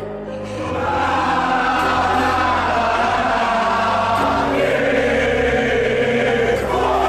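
Many voices singing together in a chant over background music with a steady bass line. The massed singing swells in about a second in and stays loud.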